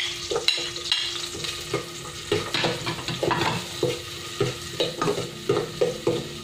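Garlic and onion sautéing in hot oil in an aluminium pot, sizzling, while a spatula stirs and scrapes the bottom of the pot in quick, irregular strokes. The aim is to brown them golden.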